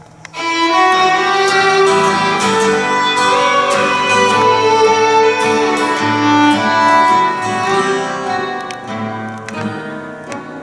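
Live violin playing sustained bowed melody notes, with guitar and plucked strings underneath. It comes in sharply about half a second in and fades away over the last few seconds.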